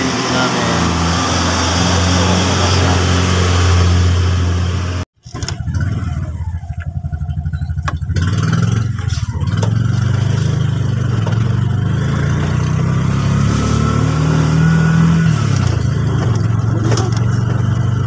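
Motor tricycle's small motorcycle engine running steadily, cut off abruptly about five seconds in, then coming back unevenly and picking up again before settling into steady running as the tricycle rides along.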